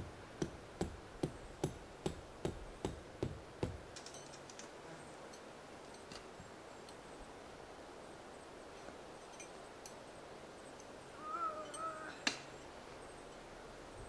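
Tent stakes being hammered into hard dirt: a run of about ten even knocks, a little over two a second, then a pause and one more sharp knock near the end.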